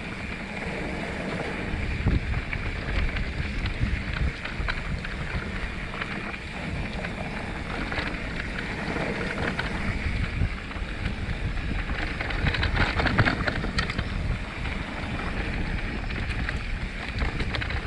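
Mountain bike riding fast down a dirt forest trail: wind rushing and buffeting over the microphone, tyres rolling on the dirt and the bike clattering over bumps, loudest about three-quarters of the way through.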